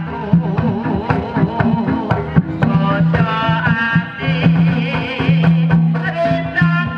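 Live kuda kepang accompaniment music: rapid hand-drum strokes under a low held tone and a wavering, wobbling melody line.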